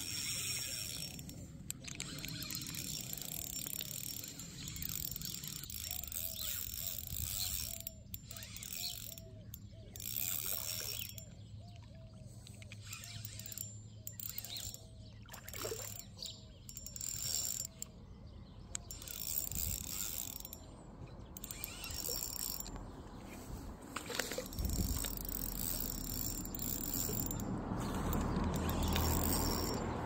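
Spinning reel being cranked to retrieve line, its gears turning with a steady mechanical whir and a repeating tick about twice a second. A louder, noisier rushing comes in near the end.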